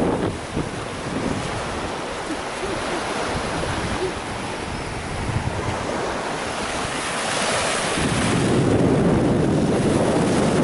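Small ocean waves breaking and washing up on a sandy beach, with wind buffeting the microphone; the rush grows louder again over the last few seconds.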